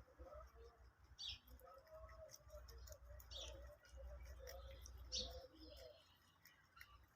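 Faint crisp clicks of rabbits chewing greens, with a short high bird chirp about every two seconds and a low rumble underneath.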